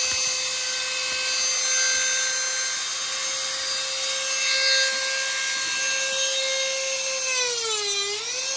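Dremel rotary tool with a carving burr running free with a steady whine. Near the end its pitch dips and wavers as the burr bites into the wood.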